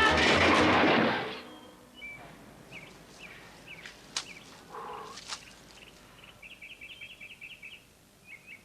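Score music cuts out about a second in. Faint outdoor ambience with short high bird chirps follows, with a rapid chirping trill in the second half and two sharp clicks in the middle.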